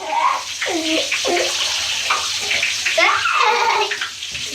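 Water moving in a bathtub around a bathing child, with a steady hiss throughout. The child's high voice makes several short rising-and-falling sounds over it, the longest about three seconds in.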